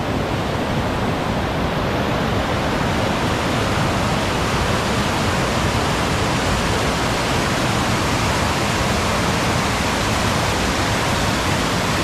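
A waterfall in heavy flow, pouring over broad rock ledges: a loud, steady rush of water.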